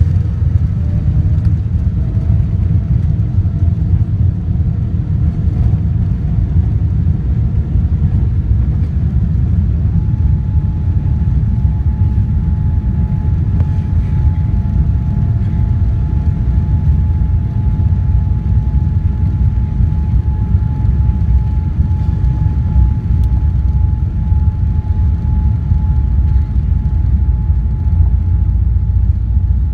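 Boeing 787-9 heard from inside the passenger cabin during the takeoff: a loud, steady, deep rumble of jet engines and airframe. A faint whine rises in pitch in the first few seconds, and a steady whine sets in about ten seconds in.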